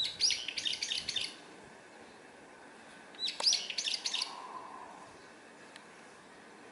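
A songbird calling in two quick bursts of rapid, high chirps, each about a second long, the second about three seconds after the first.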